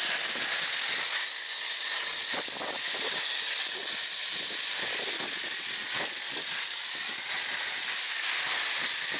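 Meguiar's foam cannon on a pressure washer spraying snow foam: a steady, even hiss of water and foam jetting from the nozzle.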